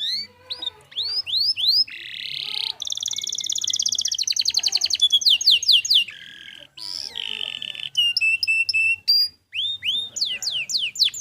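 Domestic canary singing a long, varied song without pause: a run of quick rising sweeps, then buzzy rolls and fast trills, falling notes, repeated chips, and more rising sweeps near the end.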